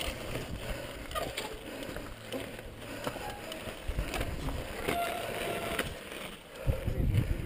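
Mountain bike rolling over rock and loose gravel: tyres rumbling and crunching, with scattered knocks and rattles from the bike, and wind buffeting the microphone. A heavier low rumble comes near the end.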